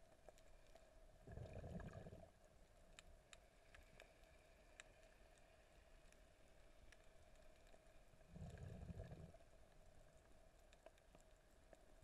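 Faint muffled underwater sound heard through a camera housing: a steady low hum with scattered light clicks, and two low surges of water noise, each about a second long, near the start and a little past the middle.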